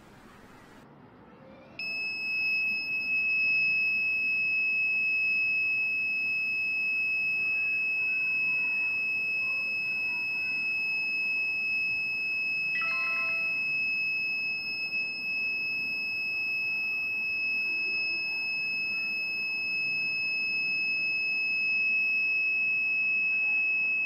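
Piezo buzzer of an Arduino reed-switch door alarm sounding one continuous high-pitched tone, starting about two seconds in: the alarm triggered by the magnet being taken away from the reed switch, signalling the door is open. About halfway through, a short chime of a few notes sounds briefly over it.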